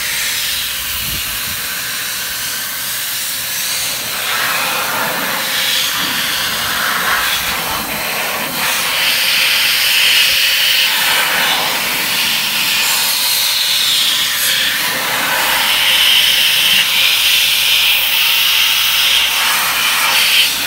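SideKick Blaster handheld car dryer running, blasting a strong jet of air that blows water off a wet wheel: a steady rushing hiss. It grows louder and brighter from about four seconds in and keeps shifting as the jet is moved over the wheel.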